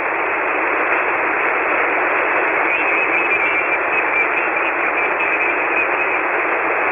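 Steady hiss of static from a ham radio receiver tuned to single-sideband on the 40-metre band, heard through the narrow voice filter with no station transmitting on the frequency.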